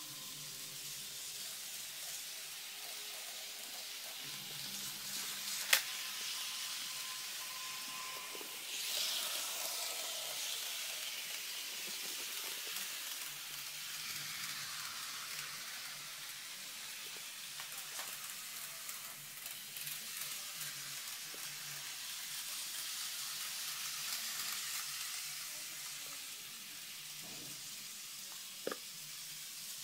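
KATO N gauge model train running on its track: a steady hissing rattle of small wheels and motor that swells twice as the train passes close. A sharp click comes about six seconds in, and another near the end.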